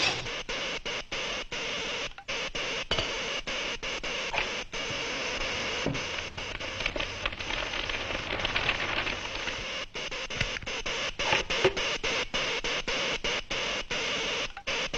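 Harsh, steady mechanical noise broken by frequent brief gaps a few times a second: a cartoon sound effect of machinery running.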